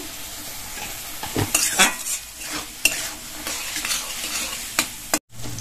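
Metal spatula stirring and scraping diced vegetables and spices around an aluminium kadai, with a steady sizzle of frying in mustard oil and several sharp scrapes of the spatula against the pan. This is the masala being fried down (kashano) with the vegetables after turmeric has been added.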